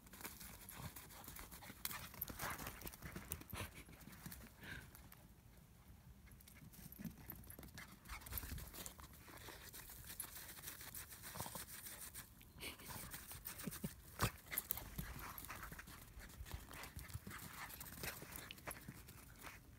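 Irregular footfalls and scuffing on a dry dirt path as a Chinese crested dog runs and scrabbles about, with the dog panting.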